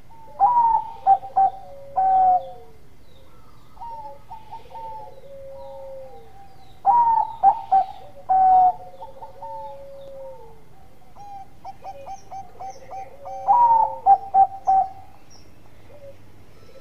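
Zebra dove (Bangkok-bred perkutut) singing its cooing song: three loud phrases about six seconds apart, each a quick run of short staccato notes, with softer stuttering coos and long falling coos in between.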